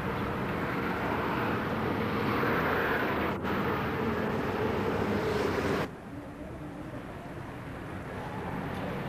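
Steady rushing outdoor background noise picked up by a home camcorder's microphone, with a brief dropout about three and a half seconds in. About six seconds in it drops abruptly to a quieter, lower noise where the recording cuts to a new scene.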